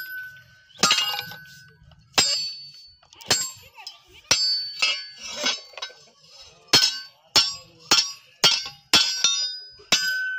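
Hand hammer striking a steel billhook and its iron tube handle on an anvil, each blow ringing metallically as the handle is driven on. About a dozen strikes, roughly a second apart at first, then coming faster, about two a second, in the second half.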